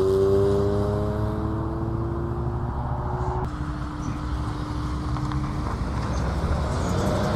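Sports-car engines on a road: one engine's note climbs slowly as the car pulls away, then drops to a lower, steady note about three and a half seconds in as a Honda S2000's four-cylinder engine runs at low revs while it rolls out of a side junction.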